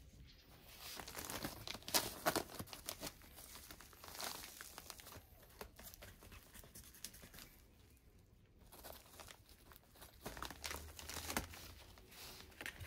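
Plastic bag of Pro-Mix HP potting mix crinkling and tearing as it is pulled open by hand, in two bouts with a quieter stretch midway.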